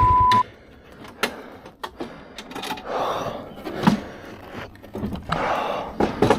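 Motorcycle engine running, then cut off abruptly under a second in. Scattered clicks and knocks and a few short rushes of noise follow.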